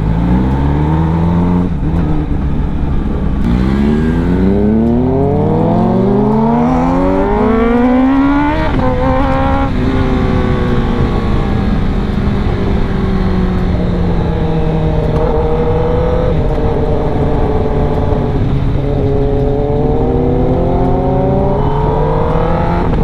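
Kawasaki ZX-10R inline-four engine with an Akrapovič full-system exhaust, accelerating hard. A short rise in revs ends about two seconds in, a long rising pull follows, and a gear change drops the revs about nine seconds in. After that it cruises at moderate, slowly varying revs, which climb again near the end.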